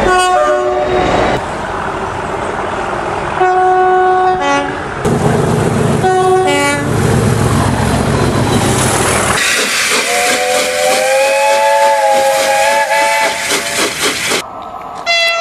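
A train horn sounds three short blasts over the rumble of rail noise, then, after about ten seconds, a longer three-note chime whistle is held over a steady hiss.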